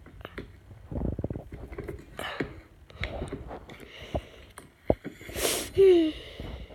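Thick slime squished and kneaded by hand in a metal bowl: a run of wet squelches, clicks and pops, with a louder squelch about five and a half seconds in followed by a short squeak falling in pitch.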